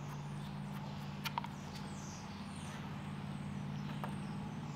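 A steady low mechanical hum, with two faint short clicks about a second in.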